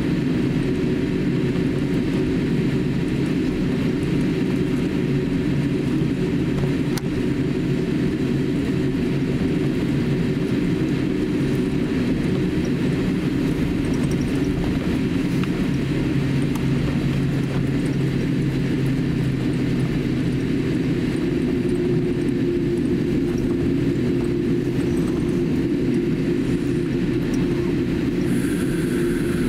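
Cabin noise of a Boeing 787-8 taxiing after landing: a steady low drone from the idling engines and cabin air, heard from a window seat inside the cabin.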